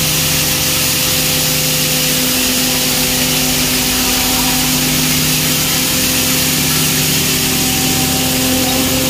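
Belt-driven hammer mill (pulverizer) running at full speed, powered by an electric motor and grinding maize fed into its hopper: a loud, steady rushing noise over a constant machine hum.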